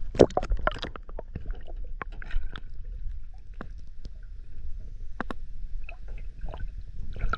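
Scattered knocks and clicks of fishing gear being handled in a small boat over a steady low rumble.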